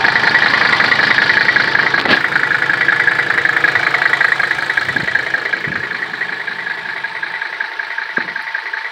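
Mercedes W126 300SD's five-cylinder turbodiesel engine idling steadily, growing somewhat quieter over the last few seconds.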